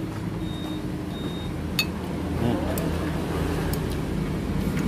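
Steady low rumble of motor vehicle engines running close by, as in street traffic. A few light clicks of a metal spoon against the bowl come in the second half.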